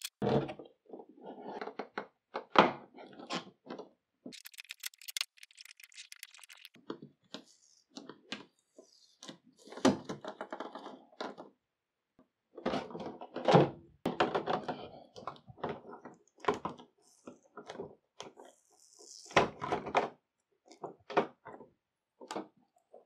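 Clear plastic blister packaging crackling and knocking as it is handled and its tape is picked off: irregular crinkles, taps and thunks, with a stretch of fine, high crackling about four to seven seconds in.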